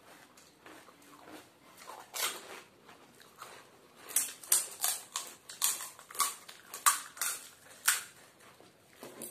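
Crisp fuchka (pani puri) shells crunching and cracking as they are broken open and eaten. There is a single crack about two seconds in, then a run of sharp crackles, about two a second, from about halfway through until near the end.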